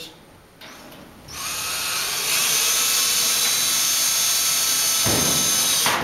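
Cordless drill driving sheet metal screws into a sheet metal furnace plenum. The motor whine starts about a second in and holds steady. Near the end a rougher, lower sound joins it, and then the drill stops.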